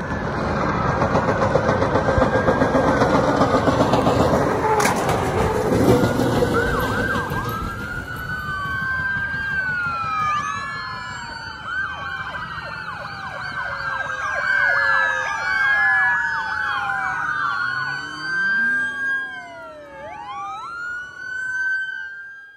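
Several police car sirens wailing at once over the rumble of passing vehicles. The overlapping wails rise and fall, thicken from about seven seconds in, and keep going to the end.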